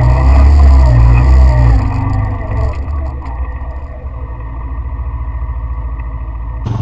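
Off-road vehicle engine running on a rough trail. It is loud for the first couple of seconds, then eases off to a quieter, steadily pulsing rumble.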